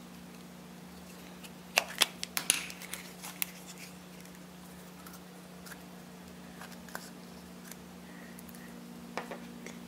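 Plastic snap-on lid of a Play-Doh tub being pried off: a quick run of sharp snaps and clicks about two seconds in, then a few fainter clicks later on, over a steady low hum.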